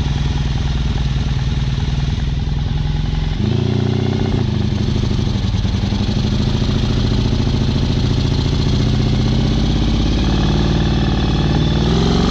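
Honda VF1000 V4 motorcycle engine running under light throttle as the home-built buggy drives along. About three and a half seconds in the engine note steps up louder, and it begins to rise in pitch at the very end.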